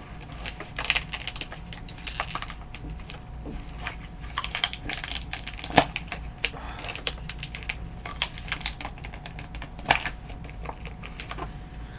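Mail packaging being worked at by hand to get it open: irregular rustling, crinkling and clicking, with two sharper snaps about six and ten seconds in.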